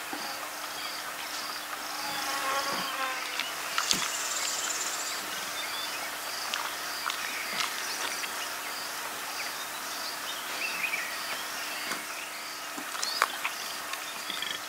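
Insects chirping, a high pulse repeating about twice a second, with scattered sharp clicks over it.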